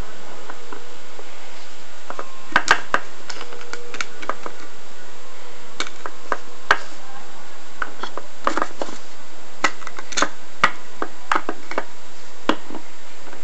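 Plastic Littlest Pet Shop toy figures being handled and moved about, making scattered, irregular clicks and taps over a steady hiss.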